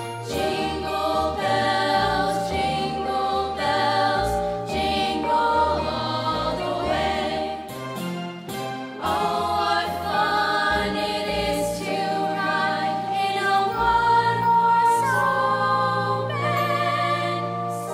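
Middle school choir singing in harmony, several voice parts at once on long held notes, with vibrato on the held notes near the end.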